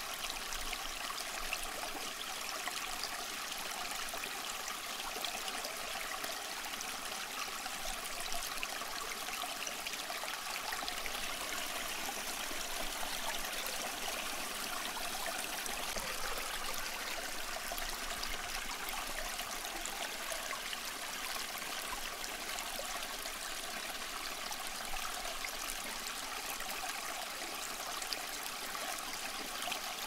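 A small tiered tabletop waterfall fountain running: thin streams of water trickling steadily from its spouts into the pots below.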